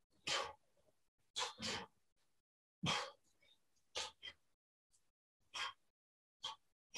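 Hard breathing of a man doing push-ups: short, sharp puffs of breath at about one or two a second, some in quick pairs.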